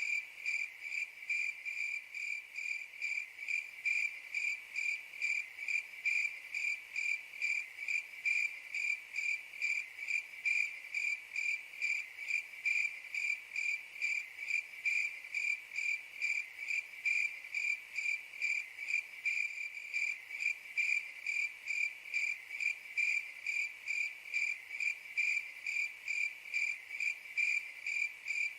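A cricket chirping in a steady, even rhythm of about two to three chirps a second, all on one high pitch.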